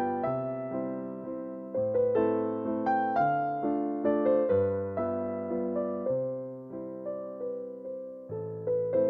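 Background music: a gentle piano melody of single notes and chords, each note struck and fading.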